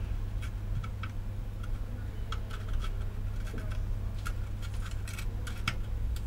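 Faint, irregular small ticks and clicks of a soldering iron tip and tweezers working a surface-mount component off a circuit board, over a low steady hum.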